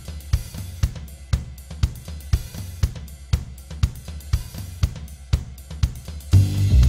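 Background music: a drum kit playing a steady beat, about two hits a second, over a bass line. A louder, fuller part comes in near the end.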